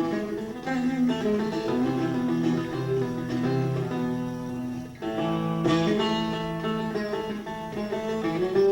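Live instrumental music led by guitar, plucked notes ringing on without singing. There is a short drop about five seconds in before the next chord comes in.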